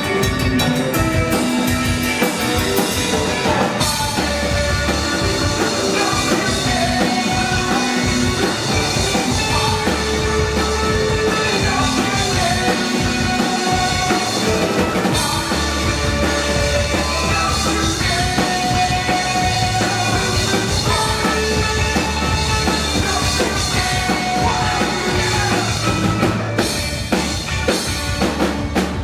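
Live rock band playing: drum kit, held bass notes and melodic guitar lines, with drum hits coming to the fore near the end.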